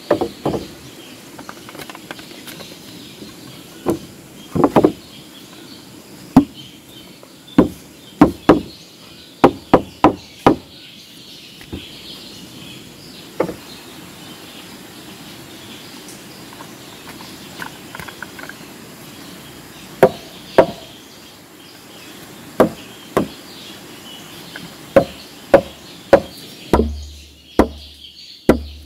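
Heavy blows of a tool striking wood, about two dozen sharp strikes in uneven clusters with a long pause in the middle.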